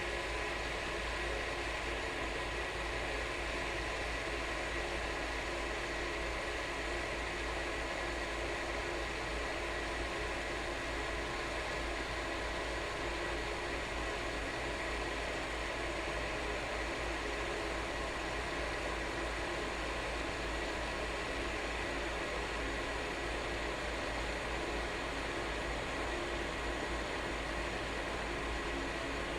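Kettle heating water, giving a steady hiss and rumble with a faint, thin, high tone held throughout.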